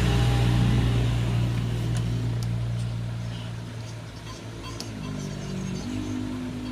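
A motor vehicle engine running steadily with a low hum, loudest at first and slowly fading. A few faint clicks sound over it.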